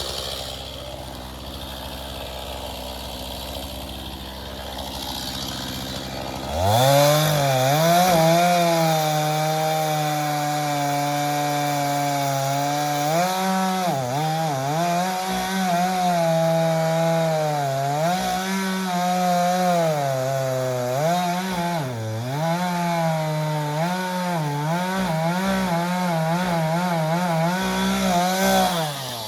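Two-stroke chainsaw idling, then opened to full throttle about six seconds in and held there, cutting into a tree trunk; the high engine pitch dips again and again as the chain loads in the wood, and it drops back to idle at the very end.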